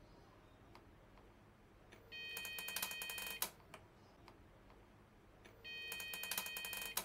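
Furuno FCV-667 colour video sounder switched on, giving two bursts of about a second each of rapid crackling clicks with a high ringing tone. This is the popping on power-up that the repairer reports as the unit's fault, which he traces to the CRT's horizontal section.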